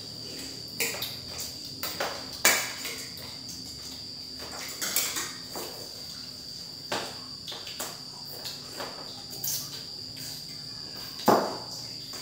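Spoons and forks clinking and scraping against ceramic plates during a meal: scattered sharp clicks, with louder knocks about two and a half seconds in and near the end. A steady high-pitched chirring runs behind them.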